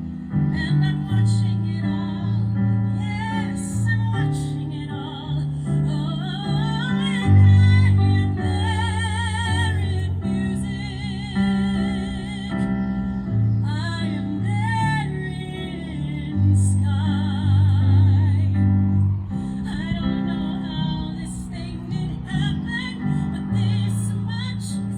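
Live piano playing with a woman's voice singing over it, holding notes with wide vibrato.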